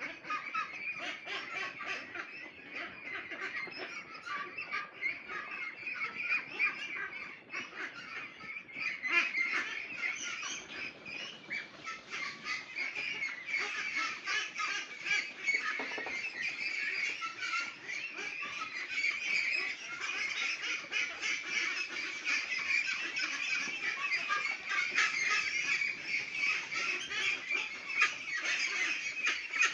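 A large flock of 29-day-old hybrid ducks calling continuously: a dense chorus of many overlapping high-pitched calls.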